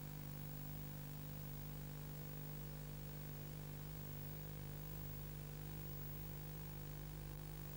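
Steady electrical hum with an even hiss, unchanging throughout: background noise from the transfer of a silent 8mm film, with no sound recorded from the scene itself.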